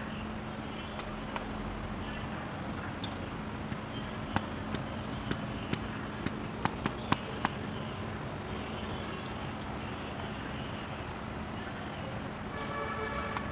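Steady background noise with a low hum, and a scatter of sharp, light clicks and taps through the middle.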